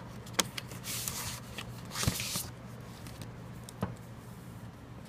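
Paper rustling and sliding as a graph-paper notebook is laid open and pressed flat on a desk, with three sharp clicks or taps spread through.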